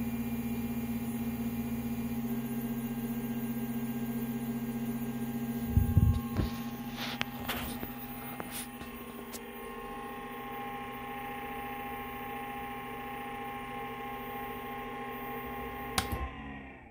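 Steady electrical hum and whine of the powered-up MPCNC router and its control box's power supply, holding idle. A few handling knocks about six seconds in, then a click from the control box's rocker switch about sixteen seconds in, and the hum dies away as the power is cut.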